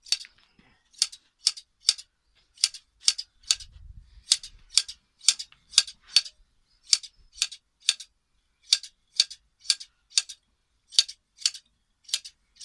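Hand-held scissors snipping through sheep's fleece during hand shearing: sharp, crisp snips about two to three a second, in short runs of three to five with brief pauses between.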